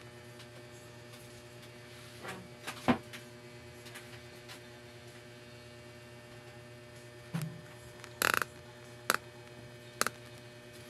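Steady electrical hum with a few sharp clicks and knocks of things being handled: a strong one about three seconds in, then a cluster of three or four near the end.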